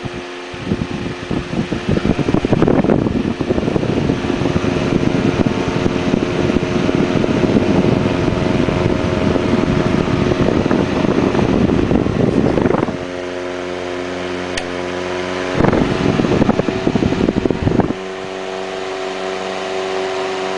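1919 GE electric desk fan with brass blades running, its motor humming under loud rushing air. The rushing drops away about thirteen seconds in, leaving a steady hum, and comes back briefly around sixteen seconds.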